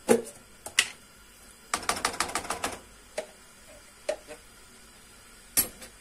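A spoon clinking and scraping against a container while tomato paste is scooped out. It starts with a couple of single knocks, then comes a quick rattle of about eight clicks around two seconds in, followed by a few scattered taps.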